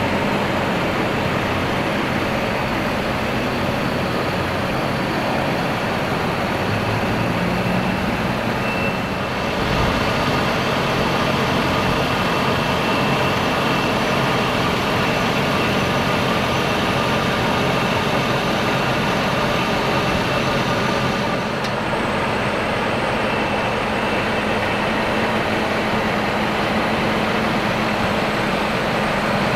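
Steady vehicle noise, a continuous rumble without break.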